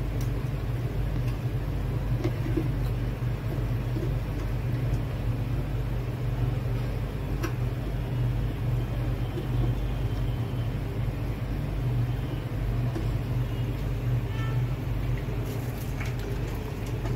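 Steady low mechanical hum, with a couple of faint clicks from plastic aquarium filter parts being handled.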